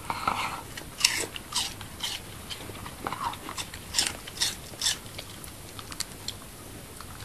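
Wire fox terrier biting into and chewing a piece of raw apple: a run of irregular, crisp crunches, the loudest about a second in and again about four seconds in.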